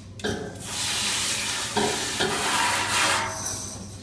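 Tap water running and splashing in a sink as dishwasher filter parts and baskets are rinsed off, starting about a quarter second in and tailing off near the end.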